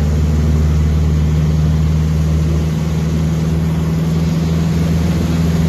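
Van's RV light aircraft's piston engine and propeller droning steadily in flight, heard loud from inside the cockpit.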